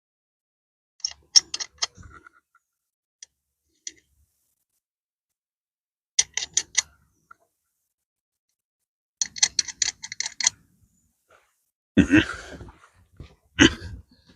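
Ratchet wrench clicking in three short runs of quick, even ticks as the lug nuts are run onto the mower's wheel hub. Near the end come two louder, rougher handling noises.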